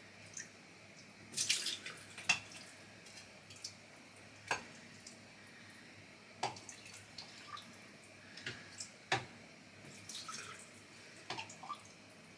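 Water dripping and splashing in irregular drops and small spills, with scattered sharp clicks, as the Instant Pot's inner pot, filled with water over chicken bones, is dealt with after being overfilled.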